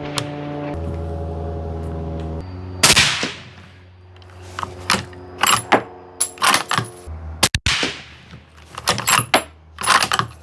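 Sharp gunshot-like bangs over a music bed of sustained bass notes. One loud bang with a long ringing tail comes about three seconds in, then a rapid string of shorter bangs and hits through the rest.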